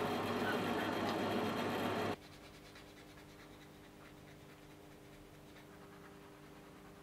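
Bandsaw running as a small block of wood is fed into the blade, then cutting off abruptly about two seconds in. After that only a faint steady hum remains, with a few light scratches.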